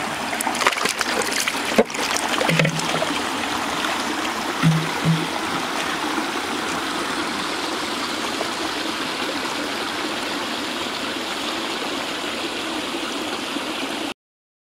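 Water running steadily as it pours out of concrete culvert pipes into a shallow canal, with a few clicks in the first couple of seconds.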